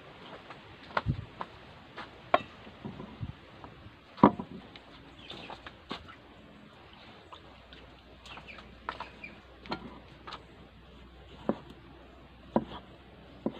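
Scattered, irregular knocks and clicks of a knife and kitchen things being handled at a wooden table, the loudest about four seconds in. Faint bird chirps are in the background.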